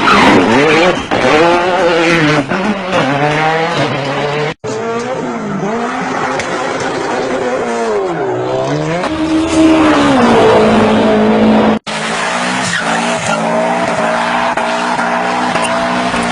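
Car engine sound effects revving up and down with tyre squeal, cut into three sections by two abrupt breaks about four and a half and twelve seconds in; the last section holds a steadier engine note.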